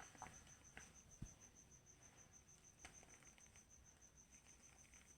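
Faint cricket chirping, a high pulse repeating about seven times a second, with a few soft scattered cracks of chalk crumbling.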